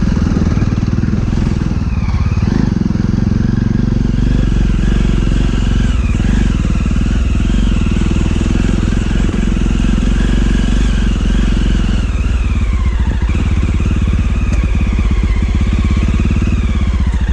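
Motorcycle engine running under way, its note rising and falling with the throttle, easing off to a slower, plainer beat about twelve seconds in.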